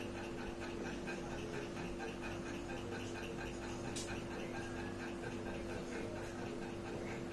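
Steady room hum with a faint, evenly pulsing hiss, and a single sharp click about four seconds in.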